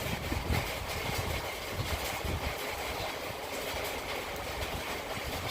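Rainstorm: heavy rain falling steadily with gusts of wind buffeting the microphone, the gusts easing after about two seconds.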